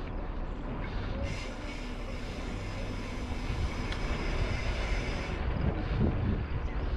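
Mountain bike rolling along a dirt trail: a steady rumble of tyres on the ground. A high buzz joins about a second in and cuts off abruptly about five seconds in.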